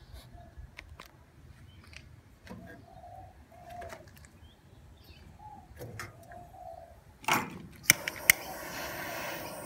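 A gas barbecue grill being lit: two sharp clicks of a lighter about eight seconds in, then the steady rushing hiss of the gas burner. Before that, a dove coos faintly several times.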